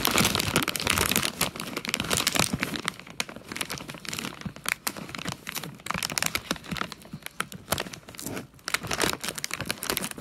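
Plastic bag of barbecue cassava chips crinkling and crackling as it is handled and opened, in uneven spells.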